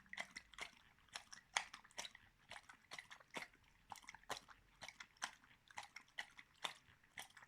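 A dog chewing and crunching, with a crisp crunch about three times a second.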